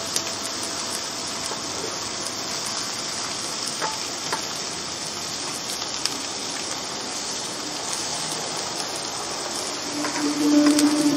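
T-bone steak, green pepper strips and napa cabbage sizzling on an electric contact grill, a steady hiss, with a few light clicks of metal tongs on the grill plate. Music comes in near the end.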